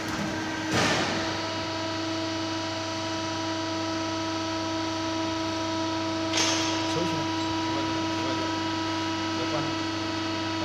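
CNC hydraulic tube-punching machine running, its hydraulic pump motor giving a steady hum, with two short hissing bursts about a second in and about six seconds in as the punch cycles on the rectangular steel tube.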